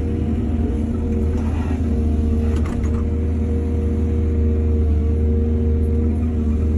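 Heavy diesel engine of an excavator running steadily with a deep, even drone. A brief burst of noise comes about two and a half seconds in.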